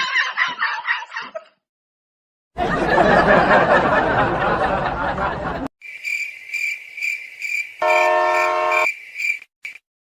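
A horn sounds one blast of about a second near the end, a steady pitched tone of the kind a handheld train horn gives. Under it runs a high, steady, pulsing chirp like insects. Earlier, after a short cut to dead silence, comes about three seconds of loud rushing noise.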